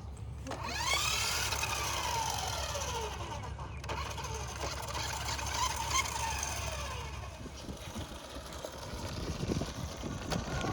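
Battery-powered remote-control toy monster truck driving: its small electric motor and gears whine, rising quickly in pitch and then falling, in two runs of a few seconds each.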